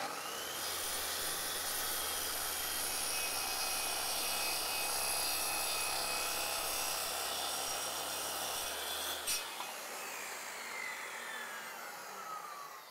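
Circular saw spinning up and cutting a scarf bevel along the edge of a plywood sheet, the blade running steadily through the wood for about nine seconds. It is then switched off with a click and winds down with a falling whine.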